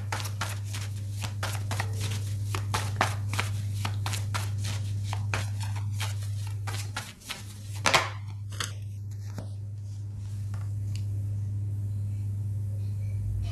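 Tarot cards being shuffled by hand: a quick run of light card slaps, about four or five a second, for the first six seconds, then a couple of louder clicks near eight seconds in, over a steady low hum.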